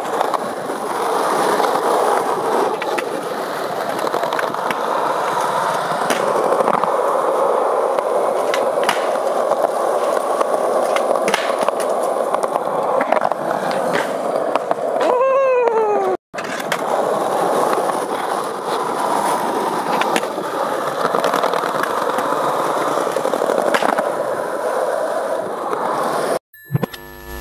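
Skateboard wheels rolling over rough concrete: a continuous gritty rumble with occasional sharp clicks.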